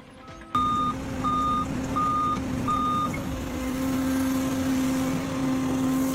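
A heavy vehicle's reversing alarm beeps four times at an even pace over its engine running steadily; the engine continues after the beeps stop.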